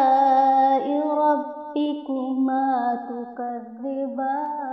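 A single voice chanting a Quran verse in melodic recitation. It holds a long drawn-out vowel on 'ala'i', then sings 'rabbikuma' in long notes that step up and down in pitch.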